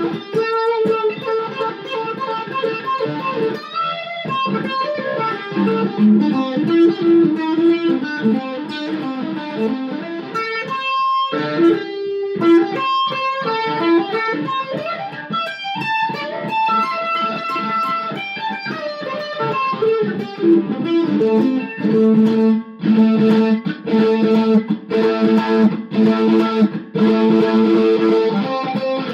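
Gibson EM-150 electric mandolin played with a pick in a rock-blues style: quick single-note runs and bends, then a riff repeated over and over in the last third.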